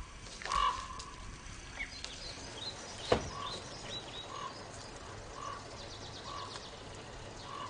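Birds calling in the forest: a short note repeated about once a second, with a few high, quick falling chirps in the middle. A single sharp knock comes about three seconds in.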